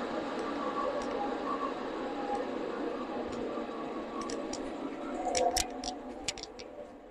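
Steady workshop hum with faint wavering tones, then a quick run of sharp clicks about five to six and a half seconds in.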